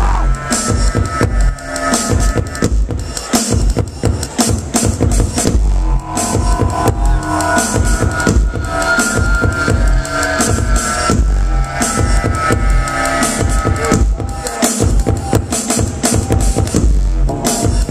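Loud live electronic music through a venue sound system: fast, dense drum hits and heavy bass kicks under held synth lines.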